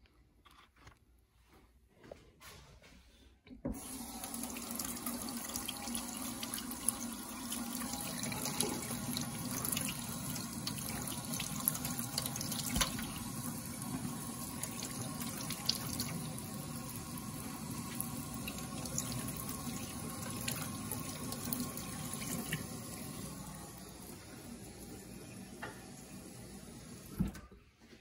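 Kitchen tap running a thin stream of water into a stainless steel sink, starting about four seconds in and running steadily, then stopping near the end with a short knock.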